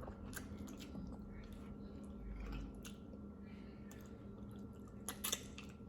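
A person chewing food close to the microphone: soft wet clicks and squelches, with a few louder ones about five seconds in.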